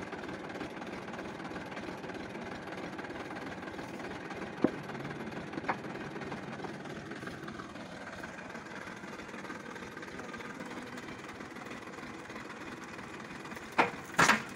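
Massey Ferguson 1035 DI tractor's three-cylinder diesel engine idling steadily. A couple of small clicks come in the middle, and two loud sharp knocks follow close together near the end.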